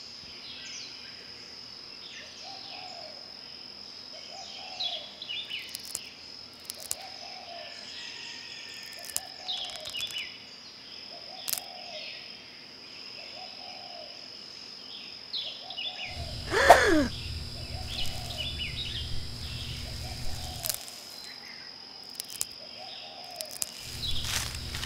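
Nature ambience of a steady high insect drone, scattered bird chirps and a lower call repeating evenly, a little over once a second. About two-thirds of the way through, a loud downward-sweeping sound and a low rumble come in.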